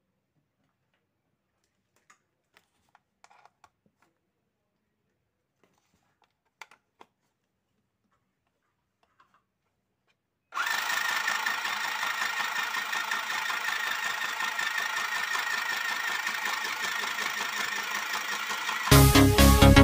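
A few faint clicks, then a mini sewing machine's small electric motor and needle mechanism running steadily for about eight seconds as a fast, even buzzing rattle. Electronic music with heavy bass comes in near the end.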